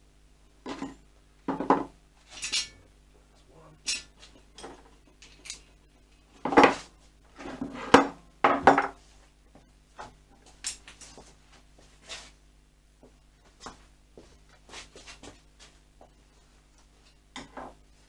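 Metal clinking and knocking as a motorcycle fork leg is handled and fitted into the yokes. The knocks are irregular, with a cluster of louder ones about seven to nine seconds in.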